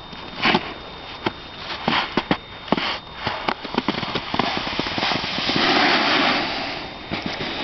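Snowboard sliding and scraping over crusty, icy snow: irregular sharp crackling crunches throughout, with a longer scraping hiss between about four and seven seconds in.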